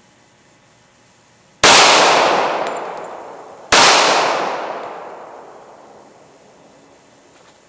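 Two handgun shots about two seconds apart, each with a long ringing, echoing fade.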